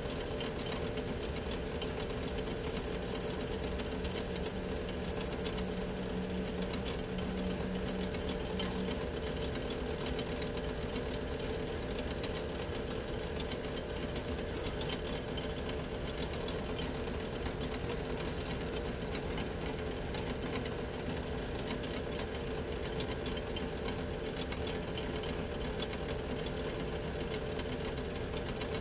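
Metal lathe running steadily while a boring bar cuts the bolt-nose counterbore into the threaded tenon of a Remington 700 barrel. A high whine and a low hum tone stop about nine seconds in; the lathe keeps running.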